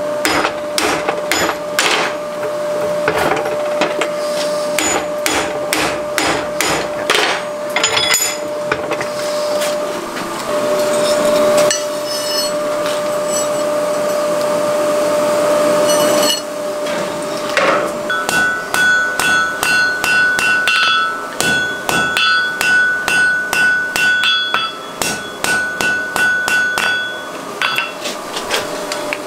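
Blacksmith's hand hammer striking a red-hot wrought iron bar on the anvil, blow after blow, about two a second in the later part, with a steady hum underneath.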